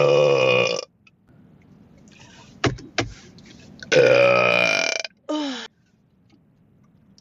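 Loud human belches. One long belch comes at once, and a second, longer one comes about four seconds in, trailed by a short belch that falls in pitch. Two short knocks come between them.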